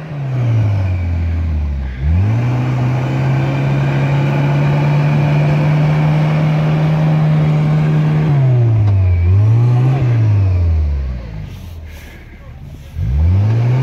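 Suzuki Samurai engine revving hard and held at high revs for several seconds while the jeep digs through deep snow, then dropping back, a short blip, and revving up again near the end.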